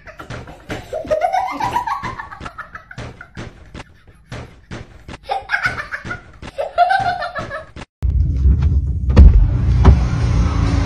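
A person laughing hard in repeated bursts, rising and falling in pitch. About eight seconds in it cuts off abruptly to a steady low rumble.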